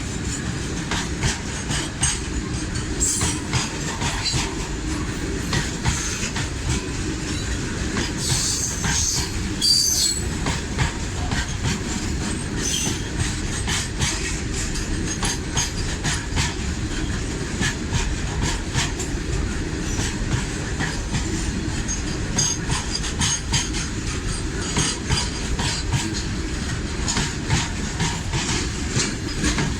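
Indian Railways freight train wagons rolling past close by: a steady rumble of steel wheels on rail with frequent clicks over the rail joints and short high squeals of the wheels here and there.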